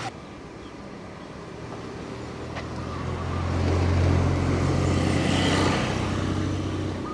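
A motor scooter's small engine approaching along the road and passing close by. Its low hum grows louder, is loudest about four to five seconds in, then fades.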